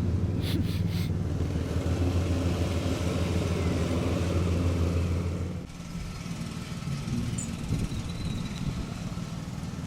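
Lawn mower engine running steadily. About five and a half seconds in it drops away abruptly, leaving a fainter, rougher engine hum.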